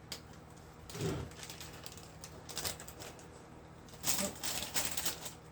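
Small glass filler beads clicking and clattering as they are poured in, with a few clicks about halfway through and a dense run of clicks near the end.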